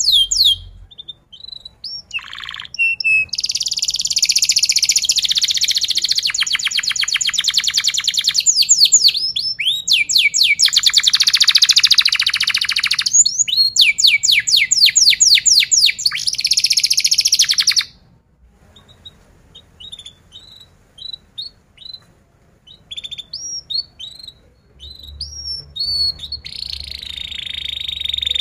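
Domestic canary singing: long runs of very fast rolling trills of repeated sweeping notes. About two-thirds of the way through the song breaks off into scattered single chirps, and a new trill starts near the end.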